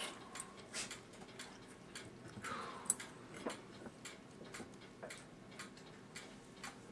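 Light, uneven metallic clicks and taps of small brass parts being handled on the strike side of a c.1915 New Haven Tambour No. 7 clock movement, with one sharper click about three seconds in.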